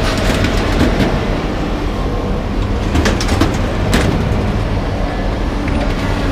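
A heavy engine runs steadily with a low rumble, and sharp metal clanks ring out a few times about three to four seconds in as scrap metal is handled.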